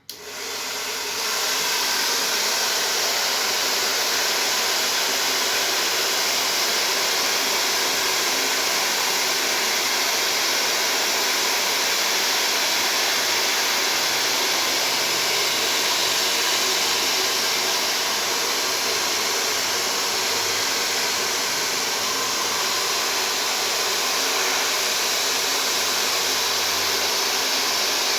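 Hair dryer switched on, reaching full speed within a second or two, then running steadily as it blows hot air.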